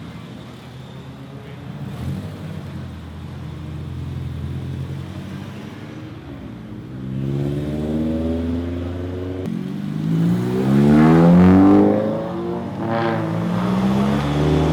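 Car engine running, then accelerating in several pulls with its pitch rising, loudest about eleven seconds in.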